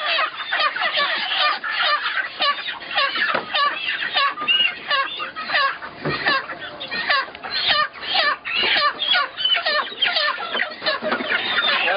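A crowd of broiler chickens squawking and clucking in alarm, many short calls overlapping without a break, as the birds are grabbed by hand and pushed into crates.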